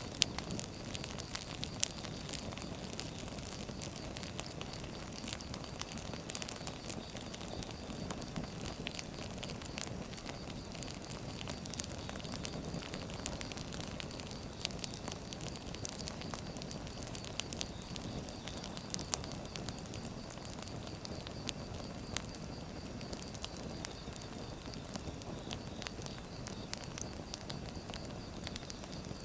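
Wood fire burning, with a steady low rush and irregular sharp crackles and pops throughout, a few of them louder than the rest.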